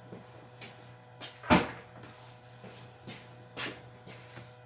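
A few clunks and knocks of hard objects being handled and set down on a surface. The loudest comes about a second and a half in and another about three and a half seconds in, with lighter taps between.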